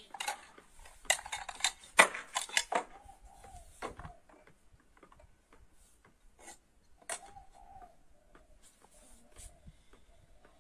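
Bowls clinking and knocking as they are set down one by one on a wooden plank, with a brief ringing tone from a struck bowl twice.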